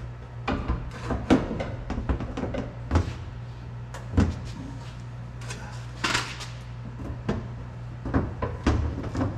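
Riveting work on truck-cab sheet metal with a heavy steel bucking dolly: a series of irregular sharp metal knocks and clanks over a steady low hum.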